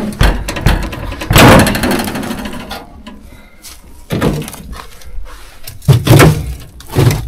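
A string of knocks and thuds with a rough, crunching scrape about a second and a half in, from someone handling the rotted body of an old truck.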